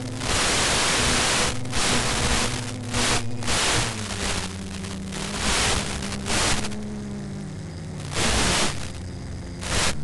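Loud bursts of radio static from the FPV video/audio downlink cutting in and out every second or so as the signal breaks up, over the steady drone of the model plane's motor and propeller, whose pitch dips slightly around the middle.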